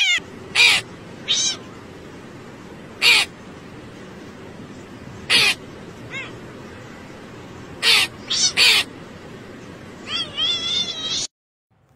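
A cat meows at the very start. A crow then gives several short, harsh caws, spaced a few seconds apart, over a steady outdoor hiss. Near the end comes a longer wavering call from the cat.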